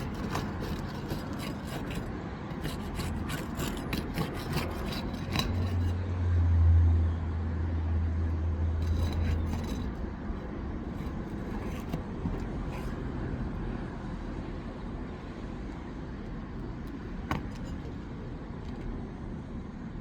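Scraping, rubbing and clicking of brittle asphalt shingles being worked loose during a roof repair, with a low rumble that swells about six seconds in and fades away a few seconds later.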